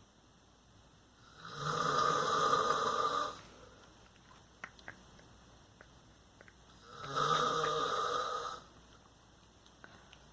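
A sleeping man snoring: two long snores about five seconds apart, each lasting about two seconds, with quiet breathing between.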